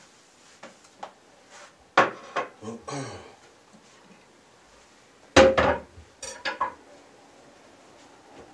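Crockery and a knife clattering as they are handled and set down, in two loud clusters of knocks with a short ringing, about two seconds in and again about five and a half seconds in, with a few lighter knocks in between.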